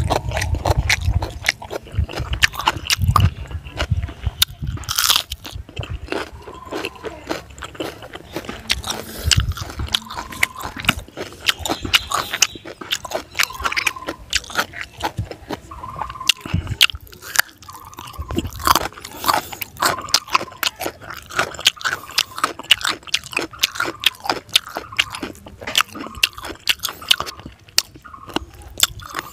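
Close-up mukbang eating sounds: a man chewing and crunching fried fish and raw carrot with his mouth near the microphone, a dense irregular run of short crunches and bites.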